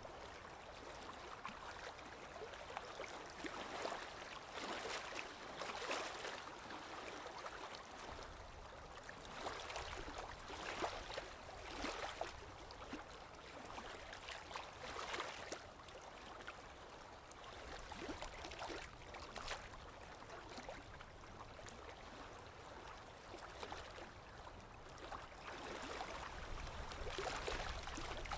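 Water running steadily, swelling and easing unevenly every second or two, like a small stream.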